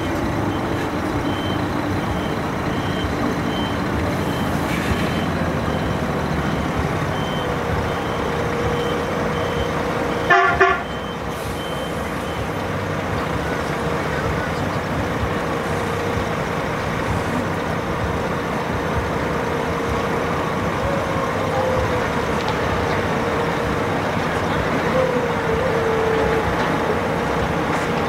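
A coach's engine running steadily while its reversing alarm beeps repeatedly for the first few seconds. About ten seconds in comes a single short, loud vehicle-horn toot.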